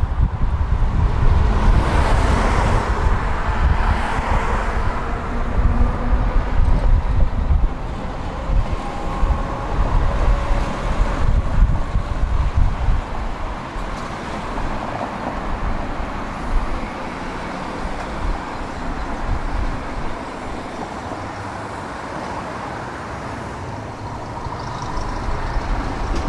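Tram running along the track with a low rumble that eases through the second half as it slows, with a faint steady whine over it.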